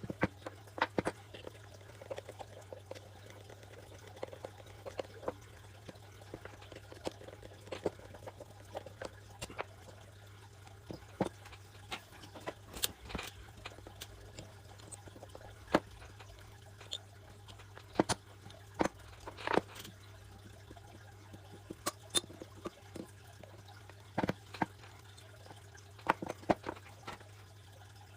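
Irregular small clicks and taps of clutch cylinder parts being handled on a workbench, over a steady low hum.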